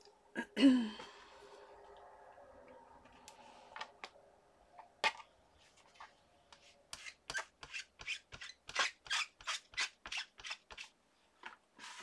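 A sharp knock with a short ring about half a second in, then a run of quick light taps, about two or three a second, in the second half: a stamping ink pad being dabbed onto rubber stamps to re-ink them.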